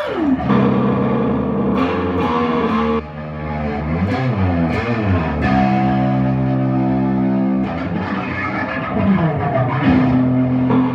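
Electric guitar through distortion and effects, held notes that bend and swoop in pitch, several times over.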